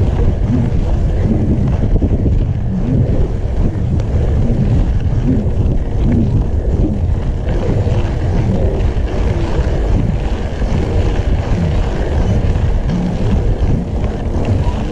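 Loud, steady wind rumble buffeting the camera microphone on a mountain bike rolling fast down a dirt road, mixed with tyre noise on the gravel.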